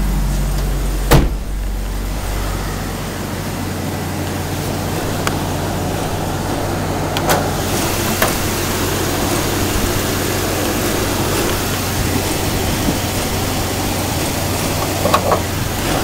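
Jeep Cherokee 4.0 straight-six engine idling steadily in park, the idle in which the owner feels an occasional miss while the check-engine light reports an intermittent cam or crank position signal. A sharp thump about a second in, and a few lighter clicks later.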